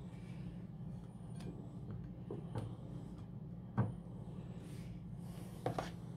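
A few soft knocks of hands and a plate against a table while a thin pancake is laid onto a cream-covered plate and pressed down, the loudest about halfway through and a double knock near the end, over a steady low hum.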